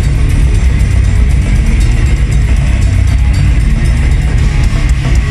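Goregrind band playing live: distorted electric guitars and bass over very fast, dense drumming, loud and unbroken.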